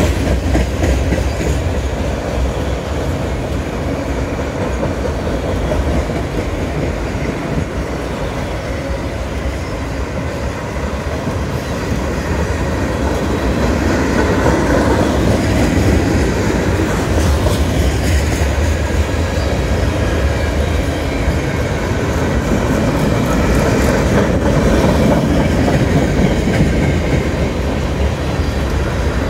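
Freight cars rolling steadily past: the rumble and clatter of steel wheels on the rails.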